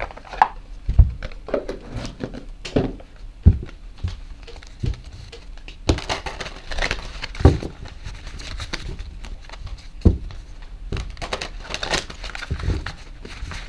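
A deck of cards being shuffled by hand: scattered taps and slides, with faster runs of card flutter about six seconds in and again after about eleven seconds.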